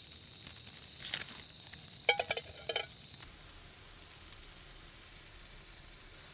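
Green beans sizzling as they fry in a pan on a camp stove. A utensil clinks and scrapes against the pan about a second in, then louder and several times around two to three seconds in.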